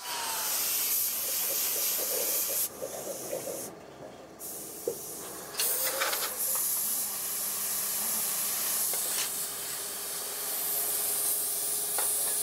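Compressed-air paint spray gun hissing steadily as it sprays fan blades. The hiss breaks off once, for about three seconds near the start, leaving quieter workshop clatter.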